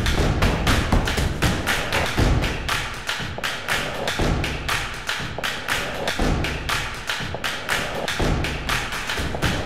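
Background music with a percussive beat: deep thumps about once a second under quick ticking hits several times a second.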